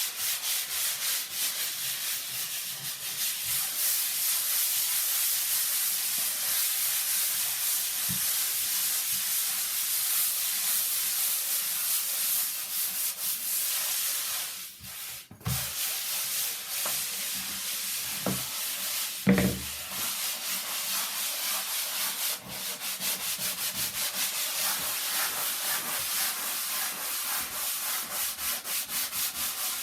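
Sandpaper rubbed by hand over a surface in quick back-and-forth strokes, sanding it down. The strokes pause briefly about halfway through, and a few light knocks follow.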